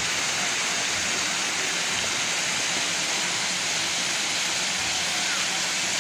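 A steady, even rushing hiss with no breaks and no pitch.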